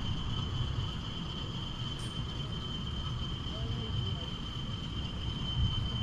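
Steady high-pitched insect trilling, like a cricket, over a continuous low rumble from a model freight train's wagons rolling past.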